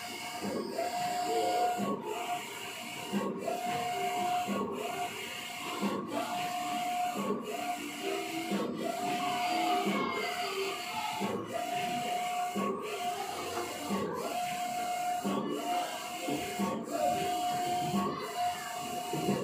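Large-format tarpaulin printer printing: the print-head carriage runs back and forth across the tarpaulin with a motor whine, pausing briefly at the end of each pass about every second and a bit.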